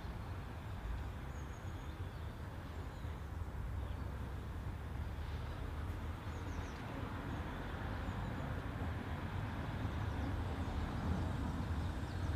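Outdoor ambience: a steady low rumble with a few faint, brief high bird chirps.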